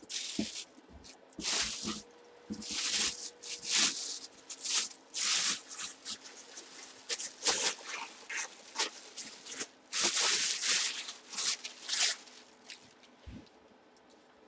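Plastic bag crinkling and rustling in irregular bursts as a football helmet wrapped in it is handled and lifted out of a cardboard box.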